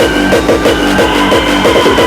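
Loud music with a steady driving beat, about three beats a second, and held high tones over it.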